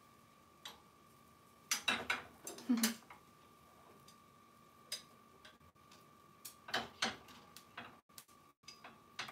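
Long cooking chopsticks clicking and tapping against a small rectangular tamagoyaki pan as egg for dashimaki tamago is worked in it, in irregular clusters of sharp taps.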